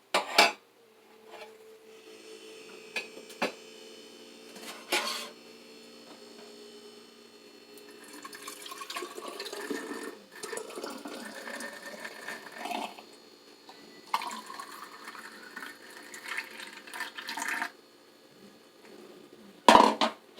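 Liquid poured into a hummingbird feeder, twice, with the pitch rising as the feeder fills. A few sharp knocks from handling the feeder and its parts come in between.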